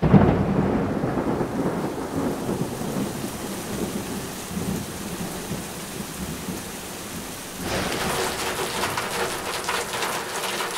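Heavy monsoon rain with a rumble of thunder that opens loud and rolls away over the first few seconds. About eight seconds in, a closer, louder patter of raindrops on a surface comes in.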